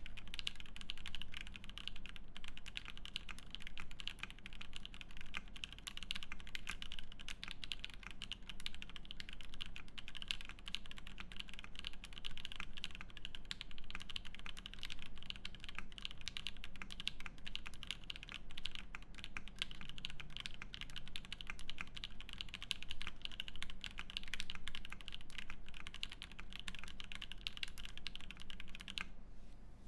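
Fast, continuous typing on a Matrix 6XV 2.0 Falcon mechanical keyboard with lubed Banana Split linear switches, an aluminium plate and JTK keycaps. The typing stops shortly before the end.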